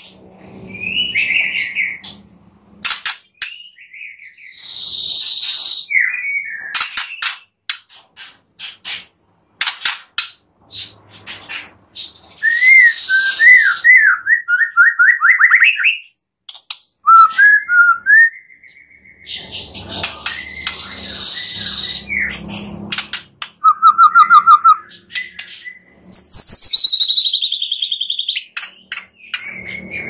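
White-rumped shama (murai batu) singing a long, varied song full of different phrases. It mixes clear whistles, fast up-and-down trills, sharp clicks and harsh rasping notes, with a long falling whistle near the end.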